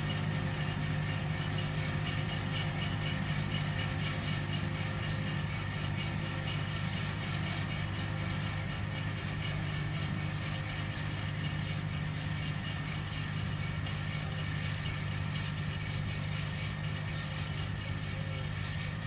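Tractor engine running under load while a PTO-driven Agroplus 430 S row trencher cuts a planting trench: a steady low drone with a rapid rattle on top, growing slightly fainter as the rig moves off.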